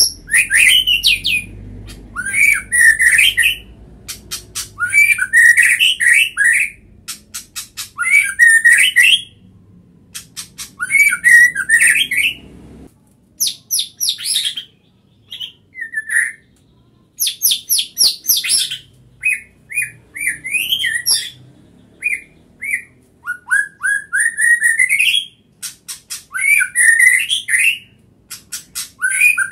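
White-rumped shama (murai batu) singing loudly: a long string of short varied phrases of rising whistles, fast chattering trills and high sharp notes, with brief pauses between phrases.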